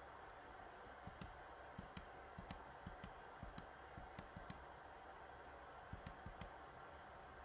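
Near silence with faint, irregular small clicks, one or two a second and sometimes two close together.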